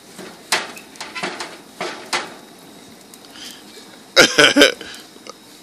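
A few sharp metal clicks and clinks of a utensil against a gas grill's cooking grates, then, about four seconds in, a loud burst of three quick vocal sounds from a man.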